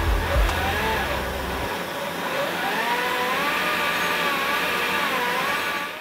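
Background music: a wavering, sliding lead line over a bass part that drops out about two seconds in, with the music cutting off abruptly at the end.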